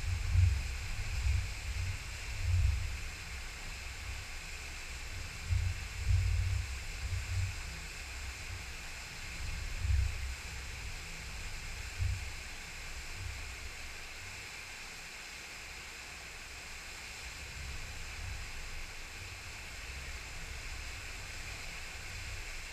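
Small waterfall spilling into a rocky creek pool: a steady rushing hiss. Low rumbling gusts of wind on the microphone are the loudest thing at first, and die away about halfway through.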